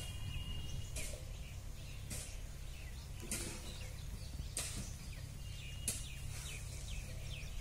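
Swaraj 744 XT tractor's 3478 cc diesel engine idling with a low, steady hum. Short high chirps come about once a second over it.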